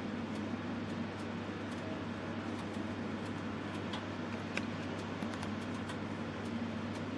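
Wood fire burning in a fireplace, crackling with scattered sharp pops over a steady hiss and low hum.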